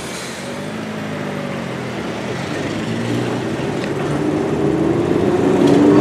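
Enoden electric train approaching, its running rumble and low motor hum growing steadily louder, with a few clicks from the wheels near the end.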